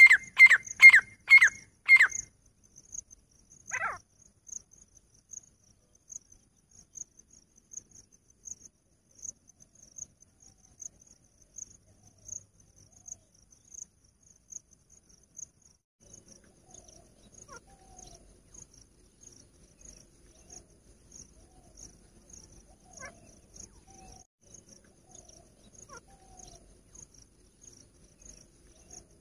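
Female grey francolin calling, a fast series of loud calls at about three a second that stops about two seconds in, with one more call near four seconds. After that, an insect chirps steadily about twice a second, with a few faint soft notes.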